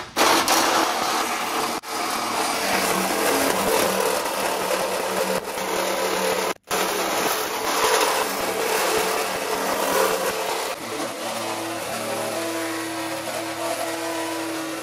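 Reciprocating saw cutting through a chrome truck bumper: the blade saws through the metal over the motor's steady running, with brief breaks about two and six and a half seconds in. Near the end the motor settles into a steadier hum.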